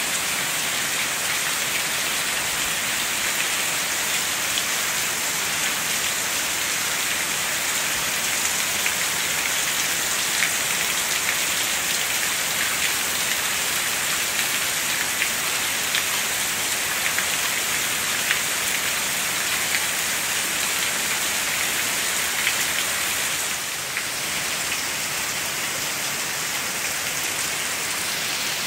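Steady rain falling, a continuous hiss with scattered drops ticking; the hiss eases slightly near the end.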